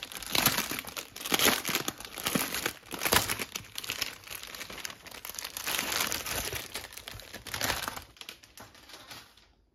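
Clear plastic bag around a rolled diamond-painting canvas crinkling and rustling as it is handled, in irregular rustles that die away about eight seconds in.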